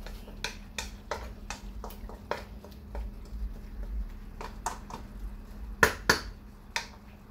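Wooden spatula scraping and clicking against a non-stick wok while vegetables are stir-fried, about two strokes a second, with louder knocks of the spatula on the pan about six seconds in.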